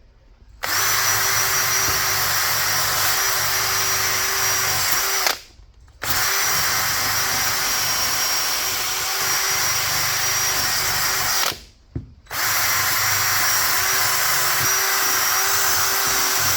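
Electric drill spinning a wire wheel that brushes surface rust off a pair of rusty channel-lock pliers. It runs steadily in three stretches, stopping briefly about five seconds in and again about eleven seconds in.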